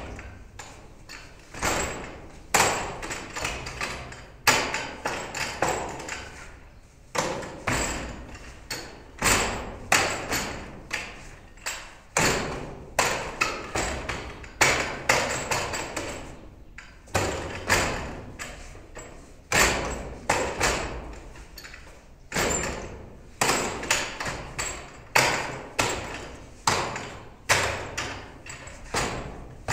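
Wing Tsun wooden dummy (mook yan jong) being worked by hand: forearms and palms knock on its wooden arms and trunk in quick, irregular runs of sharp knocks, each ringing briefly, with short pauses between the runs.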